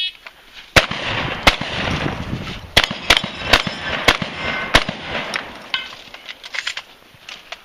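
Shotgun fired rapidly in a string, about seven shots over four seconds at uneven spacing, followed by fainter clicks and knocks.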